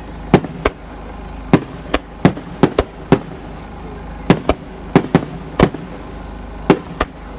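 Aerial fireworks shells bursting: a rapid, irregular string of sharp bangs, about fifteen in seven seconds.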